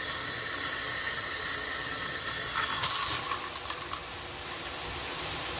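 Waterpik PowerPulse handheld shower head spraying water on its first spray setting, a steady rushing hiss. About halfway through it swells briefly and turns brighter.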